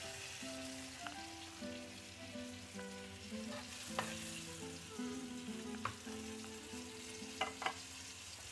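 Chicken pieces sizzling steadily in hot oil in a sauté pan as they are lifted out with metal tongs, with a few sharp clinks of the tongs against the pan. Soft background music with a slow melody plays underneath.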